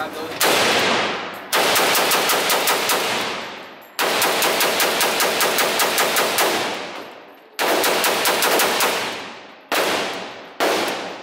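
AK-pattern rifle fired at an indoor range in several rapid strings of about six shots a second, then two single shots near the end, each string ringing out in the range's echo.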